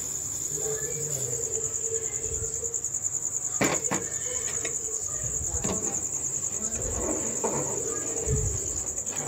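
Crickets trilling steadily in a high, slightly pulsing tone, with a few sharp clinks of a metal spoon against the pot as the milk and rice are stirred, the loudest a little over three and a half seconds in.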